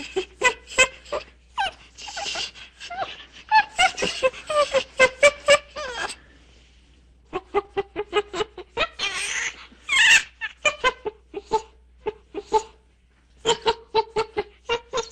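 Chimpanzee panting calls: runs of quick, rhythmic breathy pants, about three a second. They break twice into longer, shrill, excited screaming, first a couple of seconds in and again about ten seconds in.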